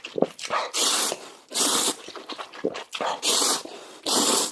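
Mouth sounds of a person eating extremely spicy noodles: four short, hissy sucks of air and noodles through the lips, about one a second, with quieter chewing between.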